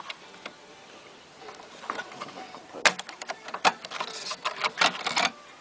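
A quick run of sharp clicks, taps and rattles from the loosened LCD display board being handled and worked out of the inverter's sheet-metal front panel, starting about a second and a half in and thickest near the end.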